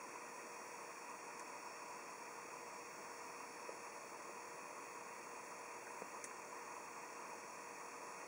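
Quiet steady hiss with a faint steady hum tone underneath, and a couple of tiny ticks about halfway through.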